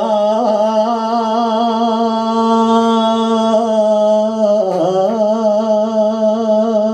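A man sings a sevdalinka-style Bosnian song unaccompanied by speech, holding a long note with a wide, wavering vibrato. The note breaks briefly about five seconds in and then another long held note begins. Steady sustained low tones sound underneath the voice.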